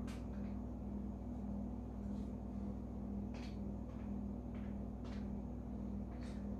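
Faint clicks of a handheld electronic calculator's keys being pressed, a handful of them at irregular intervals, over a steady low electrical hum.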